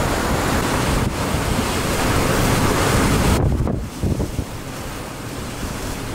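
Strong hurricane wind buffeting the microphone: a loud, steady rush. About halfway through it suddenly drops in level and turns duller.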